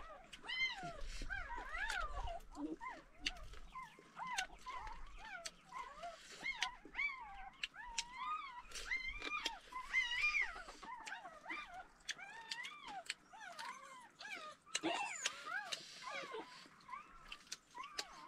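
An animal's high whining cries, many short calls bending up and down in pitch, mixed with frequent clicking eating sounds.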